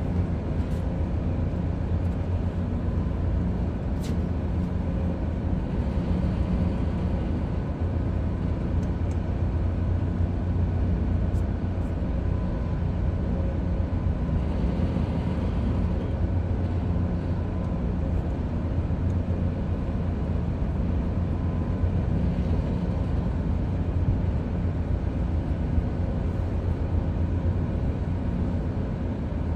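Ship's machinery running steadily: a low, even rumble with a faint hum above it.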